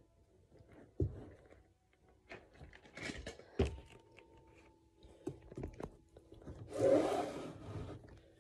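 Close handling noise of the recording phone being positioned: a knock about a second in, a sharper knock at about three and a half seconds, small clicks and rubbing, and a louder rustling scrape near the end.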